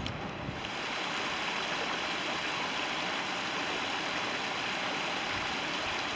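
Small rocky mountain creek rushing over a low cascade into a pool: a steady, even rush of water, starting about half a second in.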